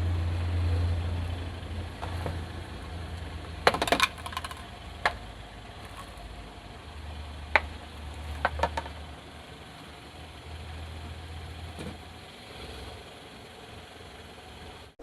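A car's engine running with a low, steady rumble while objects crack and crunch under its tyres. There is a cluster of snaps about four seconds in, then single sharp cracks spread through the rest.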